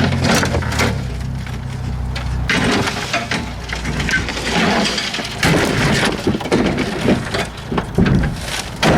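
Irregular knocks and clatter over a low engine hum that fades out after about two and a half seconds.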